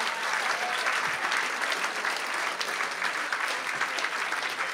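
Live audience applauding steadily, a dense patter of many hands clapping.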